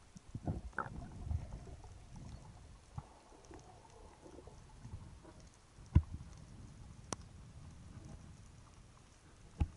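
Underwater water noise heard through a camera housing during a breath-hold dive: muffled rushing and a cluster of bumps in the first second or so as the diver goes under, then a low steady wash with a few sharp clicks, the loudest about six seconds in.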